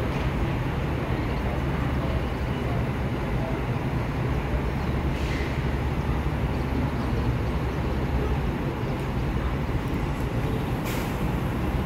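Stopped R142 subway train humming steadily, a low even rumble, with two brief hisses about five and eleven seconds in.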